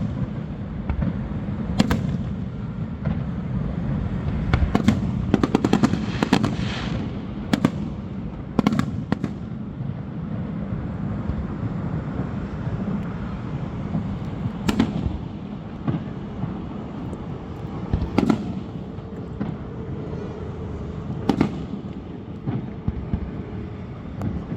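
Fireworks display bursting: single booms at irregular intervals of one to several seconds, with a dense run of rapid crackling bangs about five to seven seconds in, over a steady low rumble.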